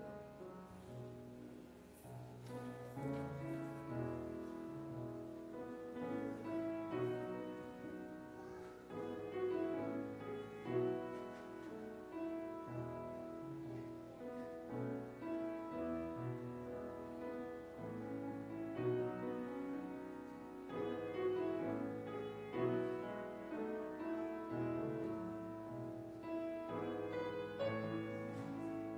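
Slow instrumental piano music played as offertory music during the collection, with held notes in a continuous, gentle melody.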